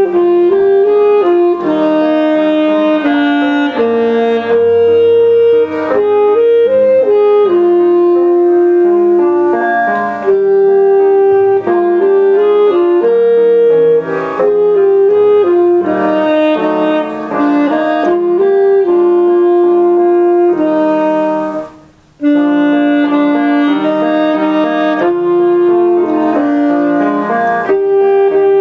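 Saxophone playing a melody over piano accompaniment, with a brief pause about twenty-two seconds in before the music resumes.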